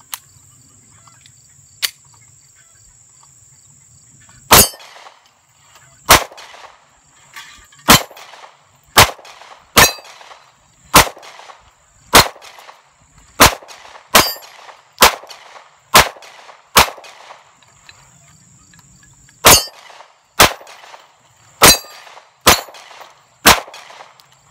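Seventeen 9mm Glock pistol shots, fired about one a second with a short pause after the twelfth, the hits ringing on steel target plates. The Magpul 17-round magazine feeds Winchester steel-case ammo through without a stoppage. Insects whine steadily in the background.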